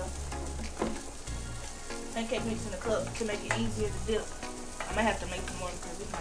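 Wire whisk beating pancake batter in a stainless steel bowl, a fast scraping and clinking, over background music with a bass line.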